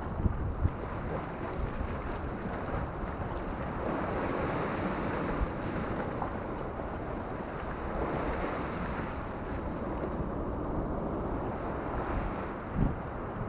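Sea waves washing against the rocks, mixed with wind buffeting the action camera's microphone, with a few brief knocks near the start, in the middle and near the end.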